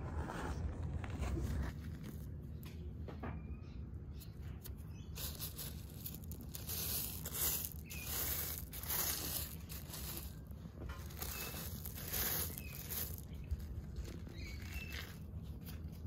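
A gloved hand scraping and rustling through loose red scoria mulch stones, a run of short gritty scrapes about once a second through the middle of the stretch.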